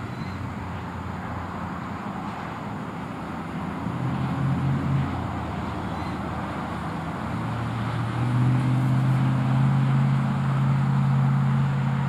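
Low, steady motor-vehicle engine hum over a continuous rush of traffic noise. The hum swells briefly about four seconds in, then grows louder from about eight seconds on.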